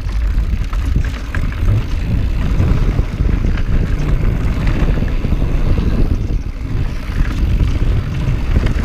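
Mountain bike riding fast downhill on a dirt and rock singletrack: wind rushing over the microphone and the tyres rumbling, with a steady patter of small rattles and clicks from the bike over the rough ground.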